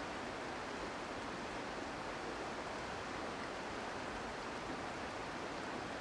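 River water rushing over shallow rapids: a steady, even rush without a break.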